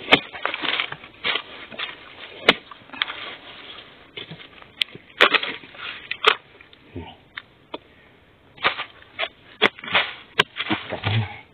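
Long-handled digging spade chopping into soil and the base of a wild bamboo shoot, with sharp knocks at irregular intervals and the crackle of dry bamboo leaves being pushed about.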